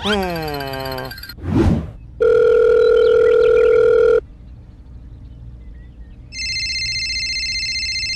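Telephone sound effects: a falling gliding tone and a quick whoosh open it. Then comes a steady electronic call tone for about two seconds, and near the end a higher electronic phone ring for about two seconds.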